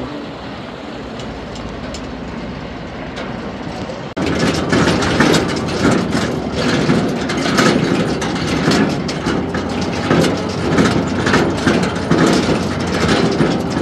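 Vehicle noise: a steady drone that jumps abruptly about four seconds in to a louder run with many clicks and knocks.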